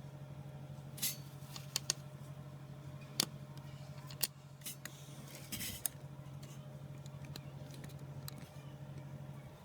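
Small metal tools clicking and tapping on phone parts during a repair, about eight sharp clicks in the first six seconds, over a steady low hum.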